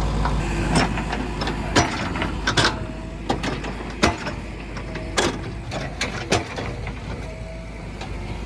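Irregular sharp metallic knocks and clanks, about ten in all, over a steady low machine hum, with three brief squeaks.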